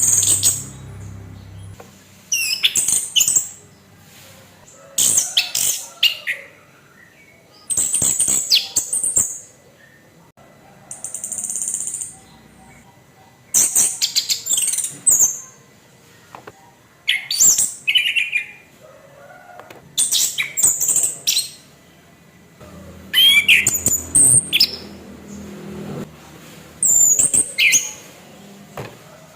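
Orange-headed thrush (anis kembang) singing a harsh-toned song in short, loud, high-pitched phrases full of clicks and quick notes, a new phrase every two to three seconds.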